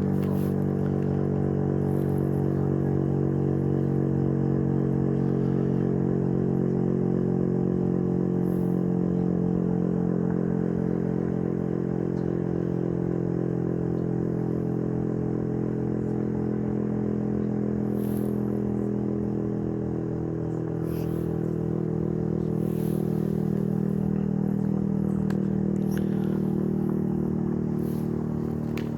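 Outdoor tornado warning siren sounding a loud, steady, low tone at close range, dipping slightly about two-thirds of the way through before holding again.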